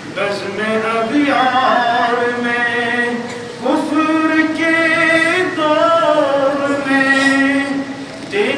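A man's voice chanting unaccompanied in long, held melodic phrases: two drawn-out sung lines with a short breath between them about three and a half seconds in.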